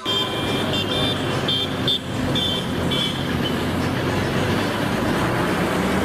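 Steady road traffic noise, with a series of short high toots during the first three seconds.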